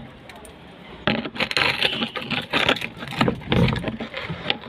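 Rust being scraped and rubbed off a washing machine's steel drum shaft: rapid, irregular scraping strokes that start about a second in. The rust has made the shaft's seal bush tighten, which causes the drum's knocking.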